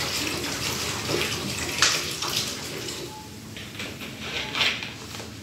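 Mineral water poured from a plastic bottle splashing into a urinal, tapering off about three seconds in, followed by a few light clicks of the plastic bottles being handled.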